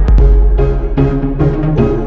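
Loud background music track with a steady drum beat and heavy bass.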